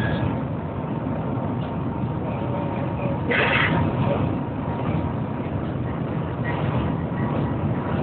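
Shanghai Transrapid maglev train heard from inside the cabin while moving: a steady rushing rumble with a faint steady tone over it. About three and a half seconds in, a brief louder hiss rises over the rumble.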